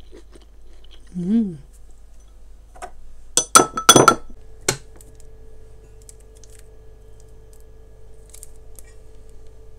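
Kitchenware clinking against glass: a quick cluster of sharp knocks and clinks that ring briefly, about three and a half to five seconds in. A faint steady hum follows.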